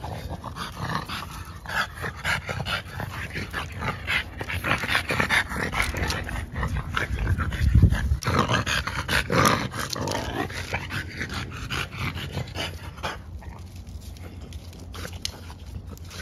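French bulldog puppies play-wrestling, with short irregular dog vocal sounds and scuffling. A low thump comes about eight seconds in.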